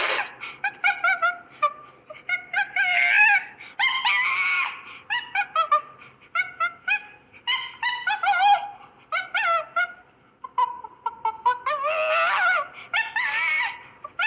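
Chimpanzee calling in rapid runs of short, high hoots and shrieks, with longer screams about four seconds in and again about twelve seconds in.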